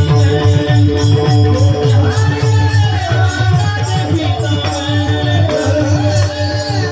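Devotional Marathi kirtan music: a sung melody over a steady drone, with a regular drum beat and a quick, even beat of high, bright percussion strokes.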